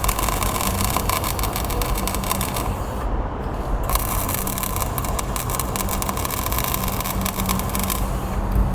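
Electric arc welding: a dense crackle over a steady machine hum, the crackle stopping briefly about three seconds in and again near the end.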